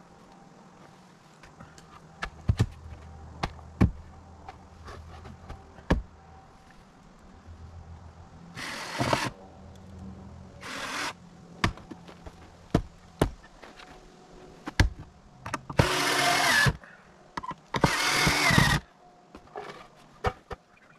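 Power drill run in four short bursts, the later two longer and louder, with scattered sharp knocks and taps of boards and tools between them.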